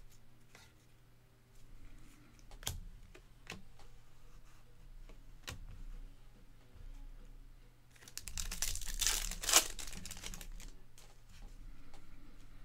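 A Bowman baseball card pack's wrapper being torn open about eight seconds in: a crinkling, crackling rip lasting about two seconds, with one sharp snap near its end. A few faint clicks come before it as cards are handled.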